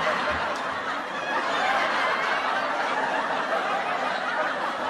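A crowd laughing, a dense, steady wash of many voices laughing together after a joke's punchline.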